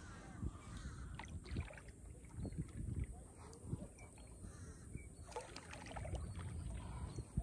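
Kayak paddle strokes splashing and dripping in calm water, over a steady low rumble.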